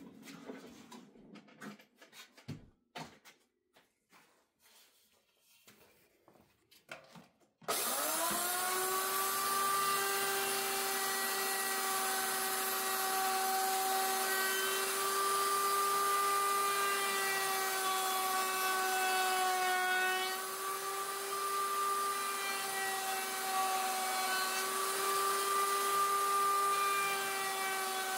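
A few light knocks and clicks, then about eight seconds in a router mounted in a router table switches on, spinning up quickly to a steady high whine. Its pitch sags briefly now and then as the round-over bit cuts into the edge of a hardwood cutting board.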